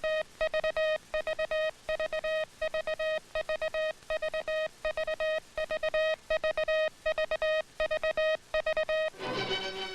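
Morse code sent by hand key as a steady buzzy tone switched on and off in short dits and longer dahs, at a quick, even rhythm. About nine seconds in the code stops and music starts.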